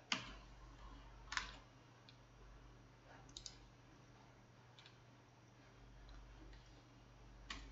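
A handful of sparse, sharp clicks from a computer mouse and keyboard over faint background hiss.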